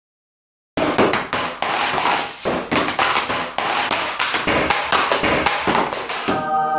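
Plastic Amazon Kindle tablet slammed again and again onto a ceramic tile floor: a rapid string of sharp clacks and clattering bounces, starting after a brief silence.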